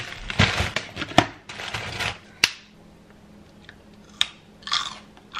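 Plastic bag of lettuce crinkling while food containers are handled and set down on a granite countertop with several sharp clicks and knocks. It goes quiet midway, then comes one more short rustle near the end.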